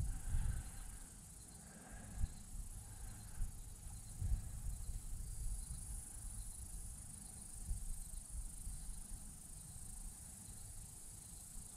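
Steady high-pitched insect chorus, getting a little louder about halfway through, over a low rumble with a few soft bumps.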